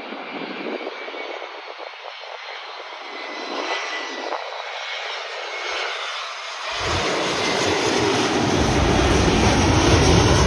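Airbus A321 jet airliner on final approach, its engine noise growing steadily louder as it closes in. A faint whine sounds early on. About seven seconds in, a deep rumble joins, and the noise is loudest near the end as the jet comes low overhead.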